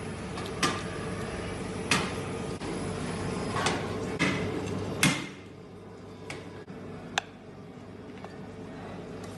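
Sharp knocks and clinks of kitchen utensils on hard surfaces, about half a dozen scattered through, the loudest about five seconds in, over a steady low hum that drops away soon after that strike.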